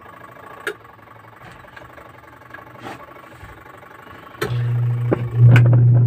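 Wash motor of a Eureka semi-automatic washing machine pausing between agitation strokes with a couple of faint clicks, then switching on about four seconds in with a loud, steady hum as the pulsator starts turning. The pulsator turns weakly and needs a push by hand to get going, a fault that may lie in the motor, the capacitor or elsewhere.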